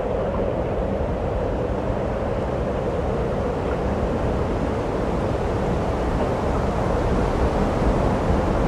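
Steady whir of a DJI Phantom 2 quadcopter's motors and propellers, mixed with wind rush, as heard from the GoPro mounted on the hovering drone; it grows slightly louder near the end.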